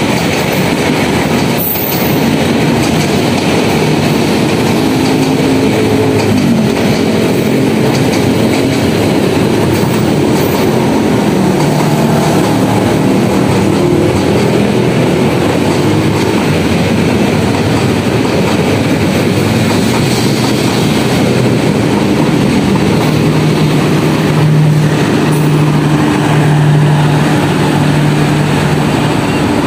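Carriages of the Jayakarta Premium passenger train running past on the adjacent track: a loud, steady rumble of wheels on rail.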